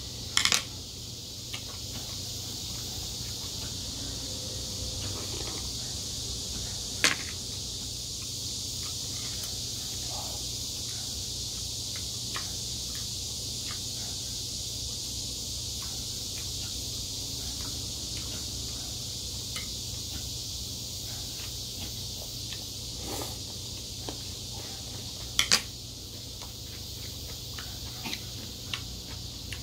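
Mukbang eating sounds: metal chopsticks clinking against a porcelain bowl in a few sharp clicks, with faint small chewing and utensil noises, over a steady high hiss.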